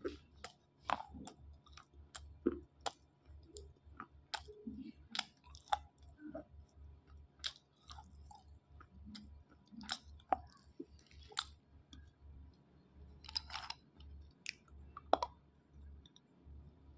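Dry slate pencils being chewed: irregular sharp crunches and crackles as the slate breaks between the teeth, with a louder flurry of crunches near the end. A low hum runs underneath.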